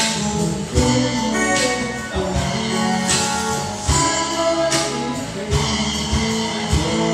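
Small live band playing: electric guitar, bass guitar and percussion, with percussive strikes landing on a steady beat.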